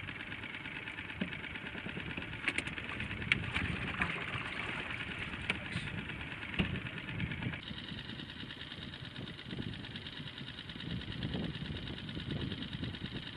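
Small boat's outboard motor idling steadily, with a few sharp clicks in the first half.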